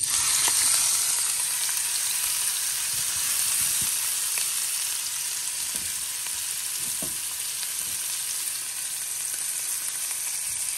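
Marinated lamb rack sizzling in hot olive oil in a frying pan, being pan-seared. The sizzle starts suddenly and then runs on steadily.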